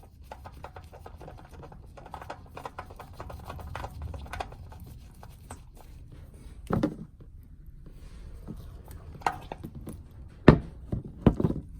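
Hands working with tools and parts under a car during an oil change: many light clicks and taps, with a few sharper knocks about seven seconds in and twice near the end.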